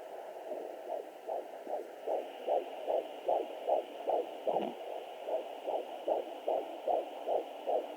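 Fetal heartbeat at 14 weeks picked up by a 3 MHz pocket fetal Doppler and played through its speaker: a fast, even pulse of about two and a half beats a second over a steady hiss, coming in about a second in. A single low thump sounds about halfway through.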